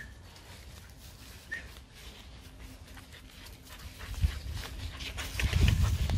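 German Shepherd puppies playing in grass: a short high squeak about a second and a half in, then rustling and thumps from about four seconds in, loudest near the end as a puppy comes right up close.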